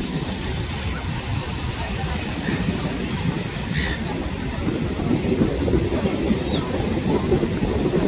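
Wind buffeting the microphone in a steady, uneven low rumble over the surf, with a couple of faint silver gull calls.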